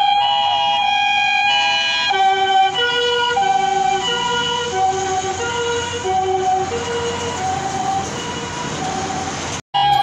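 Japanese ambulance's electronic siren: a long steady held tone for about the first second and a half, then a lower two-tone pattern stepping back and forth about twice a second, slowly fading as the ambulance pulls away. It cuts off abruptly just before the end.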